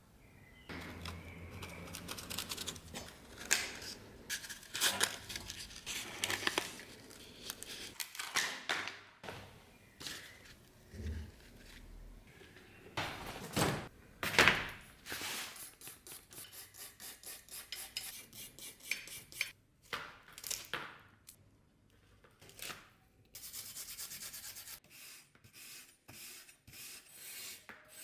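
Hand work on a rusty antique sword: rubbing and scraping strokes with sharp knocks and clinks of metal, a run of quick even strokes about halfway through, and a short hiss near the end.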